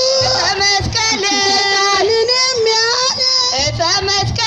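Music with a voice singing a melody in long, wavering held notes, over a low beat.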